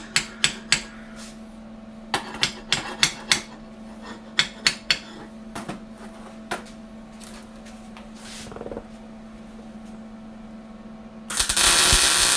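Sharp metal-on-metal taps and knocks in three quick clusters as steel pieces of a shock mount are tapped into alignment, over a steady low hum. Near the end comes a loud hissing burst of about a second.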